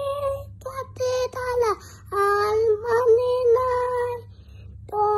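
A child singing alone in long held notes with short breaks between phrases, over a low steady hum.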